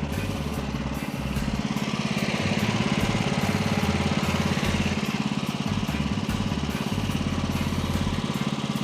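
Manual bandsaw mill's engine running steadily with a regular pulse while the band blade cuts through an eastern red cedar log. A hiss of sawing swells through the middle.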